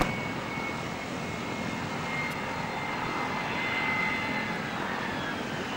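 BAC One-Eleven airliner's Rolls-Royce Spey turbofans running on final approach and flare: a steady jet rumble with a high whine that slides slowly down in pitch and grows louder toward the middle as the jet nears. A sharp click comes at the very start.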